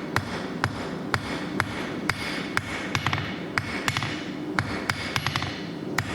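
Hand hammer striking steel bar stock on an anvil, about two blows a second, each with a short metallic ring. A few quicker, lighter taps fall between the blows.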